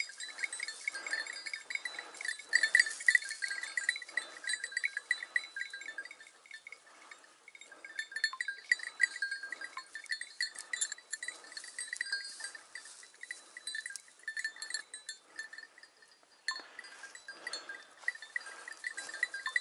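Small bells on Segugio hunting hounds' collars jingling quickly and continuously as the dogs move about working the hare's scent, thinning out briefly a few times.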